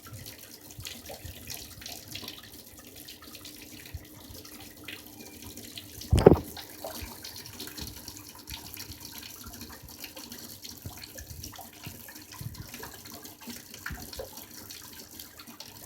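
Hot-water tap running steadily into a sink after a small repair to the supply pipes. About six seconds in comes a single loud, low thump.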